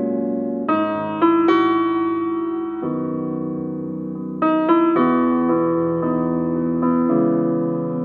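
Slow, gentle piano music: chords and single notes struck every second or two, each left to ring and fade before the next.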